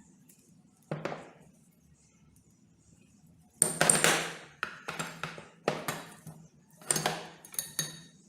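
Metal parts and tools being handled: a single knock, then a quick rattle of clinks and several more separate metallic knocks, some with a brief high ring.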